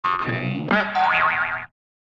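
Cartoon sound effects for an animated logo intro. A short pitched chime is followed, about two-thirds of a second in, by a springy boing whose pitch wobbles up and down; it cuts off suddenly shortly before the end.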